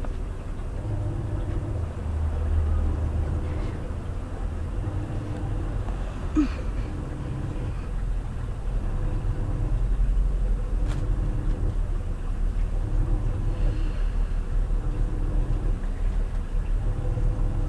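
New washing machine running its wash cycle: a low rumble with a churning that comes and goes every second or two, growing louder and more pulsing from about halfway through. A short squeak comes about six seconds in.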